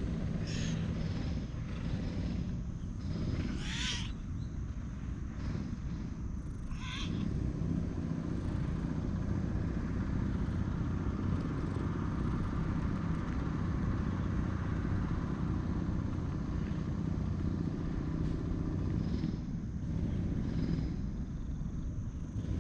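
Cat purring steadily close up as it is stroked, a low continuous rumble, with a few brief higher sounds in the first seven seconds.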